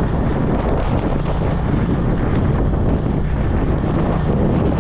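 Steady wind buffeting the microphone over the low running noise of a moving vehicle, as when filming while riding.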